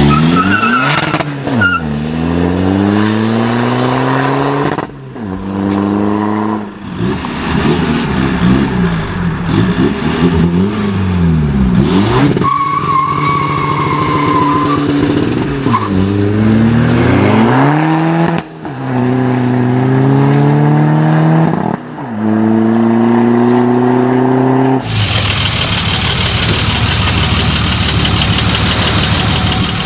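A run of short takes of turbodiesel cars accelerating hard. In each the engine note climbs, drops at a gear change and climbs again; the cars include a VW Caddy van and a SEAT Ibiza 1.9 TDI. For the last few seconds there is a steady, loud diesel engine sound from a Dodge Ram pickup.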